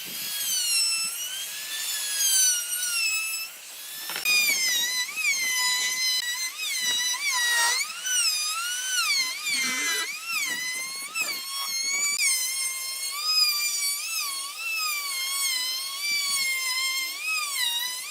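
High-speed power tool whining at a high pitch that keeps dipping and rising as it is pressed into wood and eased off.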